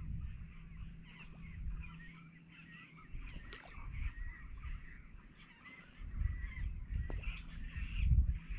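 Many small birds chirping and calling without a break. Low rumbling noise on the microphone comes and goes, strongest at the start and over the last few seconds.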